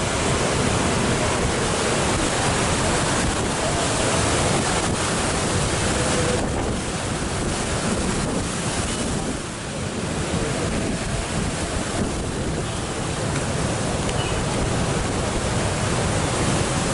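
Cyclone-driven storm surf breaking heavily, with strong wind buffeting the microphone.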